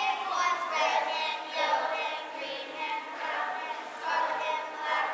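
A young cast singing a musical-theatre number together: children's and girls' voices in chorus.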